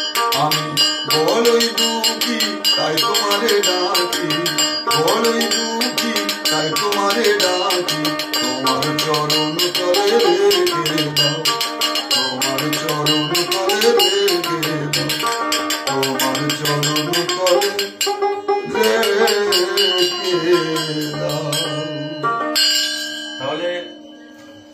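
A small lute-like plucked string instrument strummed fast, with a quick repeating melody over a pulsing low note, playing an instrumental passage of a Bengali devotional folk song. The playing stops a couple of seconds before the end.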